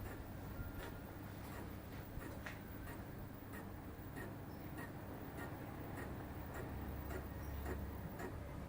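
Electric fan running with a steady low hum and a regular ticking, about two ticks a second.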